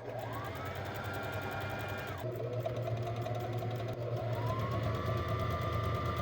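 Electric sewing machine stitching at speed, its motor whine rising as it gets going. About two seconds in the whine drops, it climbs again around four seconds in, and the machine stops suddenly at the end.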